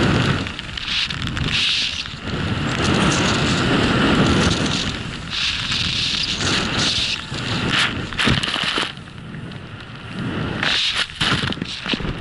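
Skis hissing through deep powder snow at speed, mixed with rushing wind on the microphone; the noise swells and eases in turn after turn, with a few sharp clicks about eight seconds in.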